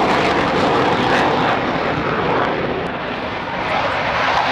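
Panavia Tornado's twin RB199 turbofans in afterburner on takeoff climb-out: loud, steady jet noise. It eases a little about three seconds in, then swells again near the end as the next Tornado passes.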